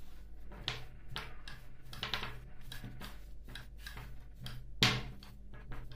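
Long thin wooden rolling pin (oklava) rolling out yufka dough on a table: irregular light taps and clicks as the pin and dough meet the tabletop, with a louder knock about five seconds in.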